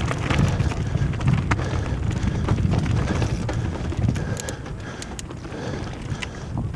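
Wind buffeting a helmet-mounted camera's microphone over the rumble of mountain bike tyres rolling across rock, with scattered clicks and rattles from the bike. It eases slightly about five seconds in.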